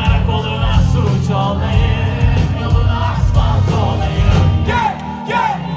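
Live band playing a pop-rock song with sung vocals over guitar, keys, bass and drums. Near the end the low end drops away briefly, leaving mostly the voice.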